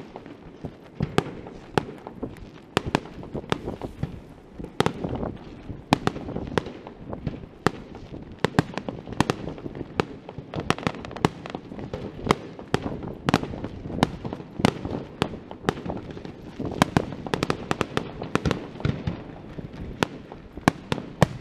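Fireworks display: aerial shells bursting in an irregular, rapid string of sharp bangs, often several a second, over a continuous rumble of overlapping reports.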